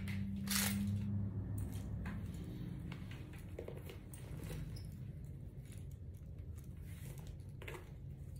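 Light handling of small metal handbag hardware: a few faint clicks and soft rustling as a strap fitting is worked in the hands.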